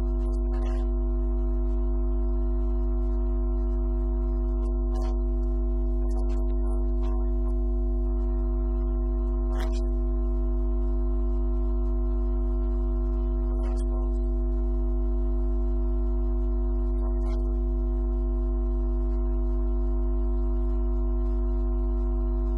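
A steady, unchanging drone of several held tones, with a few faint clicks scattered through it.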